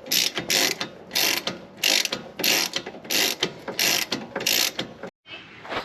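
Ratchet wrench clicking through repeated back-and-forth strokes, about eight in a row at roughly one and a half a second, stopping about five seconds in: it is backing out a 13 mm rear brake caliper bolt that has just been broken loose.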